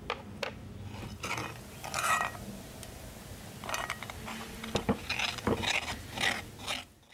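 Metal spoon stirring and scraping thick dough around a glass bowl, in several short scraping strokes with a few sharp clicks of the spoon against the glass.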